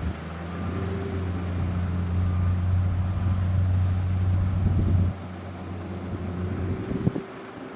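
Heavy diesel engine of an earthmoving machine running hard, a steady low drone that builds and then drops off suddenly about five seconds in, with a couple of short knocks.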